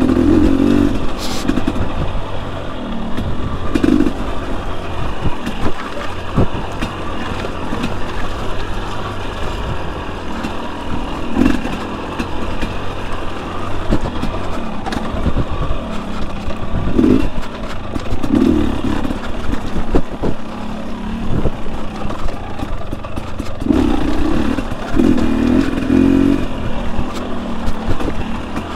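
Fuel-injected single-cylinder two-stroke engine of a 2021 Husqvarna TE250i dirt bike running under way, swelling in short revs every few seconds, with frequent sharp knocks.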